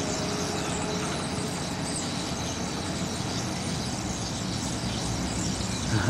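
Steady highway traffic noise mixed with the dense, continuous calling of a huge flock of birds overhead.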